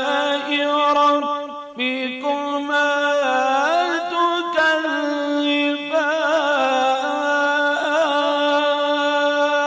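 A man's voice reciting the Quran in melodic tajweed style, drawing the word 'rabbikuma' out into long held, ornamented notes. There is a brief break about two seconds in.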